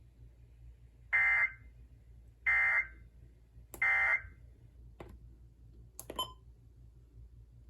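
Three short data bursts about a second apart: the SAME end-of-message tones that close a NOAA Weather Radio weekly test, heard over a radio receiver. A few sharp clicks follow.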